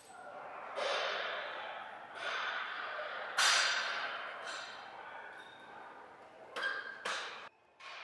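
A man breathing hard through a weightlifting set: a series of forceful exhales at irregular intervals, the loudest about three and a half seconds in.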